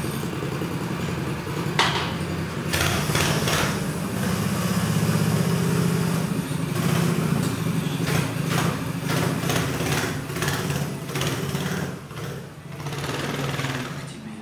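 Small engine of a home-built front-wheel-drive motorcycle running and being revved in short bursts, then pulling away, fading as the bike rides off near the end.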